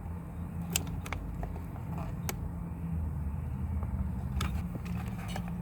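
A few sharp plastic clicks, three in all, as a steering-wheel electrical connector is worked loose and unplugged, over a steady low rumble.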